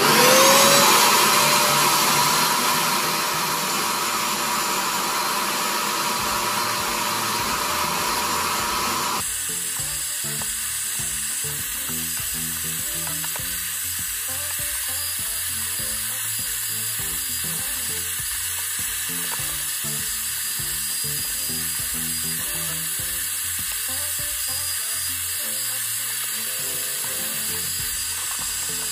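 Portable carpet spot cleaner's vacuum motor switched on, spinning up with a short rising whine and then running as a loud, steady rushing suction while its hand tool sucks wash water out of wet fur. About nine seconds in, the sound thins to a steadier hiss.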